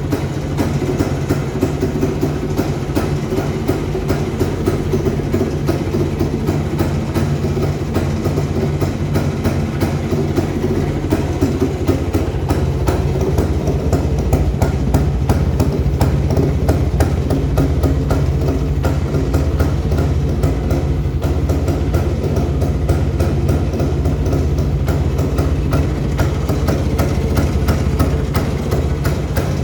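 Restored Rajdoot motorcycle's two-stroke engine running steadily with a rapid, even firing beat, holding one speed with no revving.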